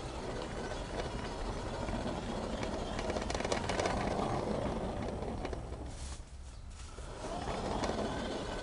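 Garden-railway model train running along its track, wheels rattling on the rails, with a run of sharp clicks about three seconds in.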